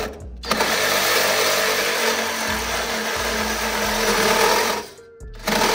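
Electric power tool cutting through a truck's steel bump-stop mount, running in long bursts: it starts about half a second in, stops just before the end, and starts again. It is fitted with a blade meant for wood and is cutting poorly.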